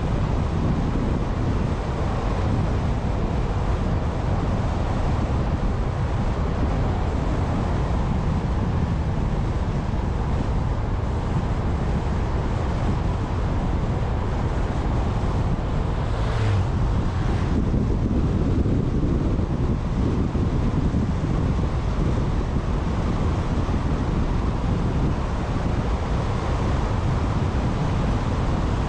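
Car driving along a mountain road at steady speed: constant tyre rumble and wind noise with no distinct engine note. Two brief taps a little past halfway.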